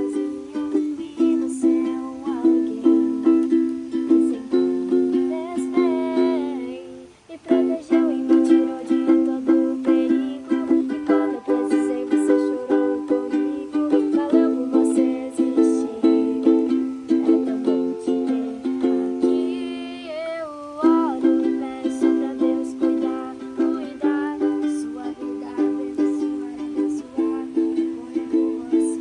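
Background music: a light plucked-string tune, ukulele-like, with a steady rhythm and a brief pause about seven seconds in.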